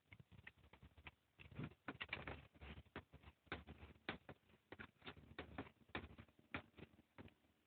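Irregular series of light clicks and knocks from hands and tools working on an air conditioner being taken down, many in quick succession.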